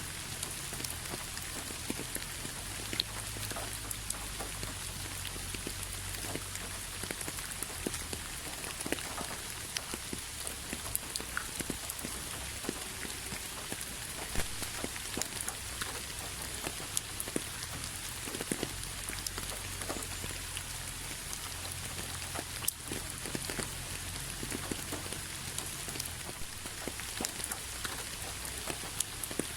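Steady rain falling on a hard surface, with many single drops tapping sharply and distinctly over an even hiss, and a low steady hum underneath.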